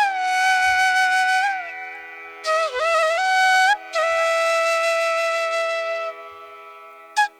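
Background flute music: long held notes that bend and slide in pitch, over a steady drone. The last long note fades away near the end, followed by a couple of short notes.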